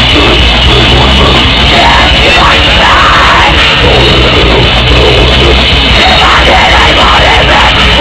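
Metal band playing live: distorted electric guitars, bass and drum kit, heard as a loud, dense, unbroken wall of sound.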